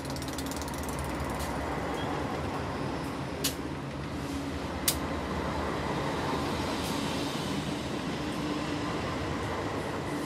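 GE Dash 9-44CW diesel-electric locomotives passing close by, their diesel engines running steadily over the rumble of wheels on the rail. Two sharp clicks a second and a half apart a few seconds in.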